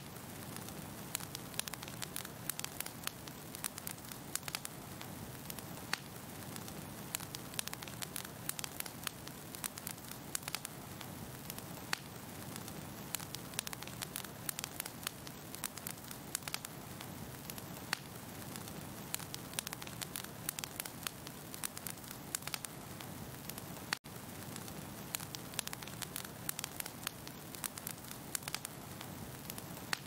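Fire crackling: a steady low rushing hiss with frequent sharp pops and snaps, cutting out for an instant about two-thirds of the way through.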